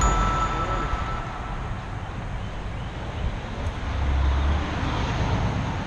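Road traffic passing on the street, a steady wash of tyre and engine noise, with a van going by close and a louder low rumble about four seconds in.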